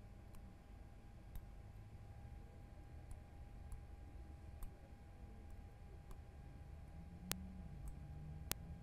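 Faint, scattered clicks of fine tweezer tips touching the pins of an LGA CPU socket while bent pins are straightened, with two sharper clicks near the end. A faint steady tone runs underneath.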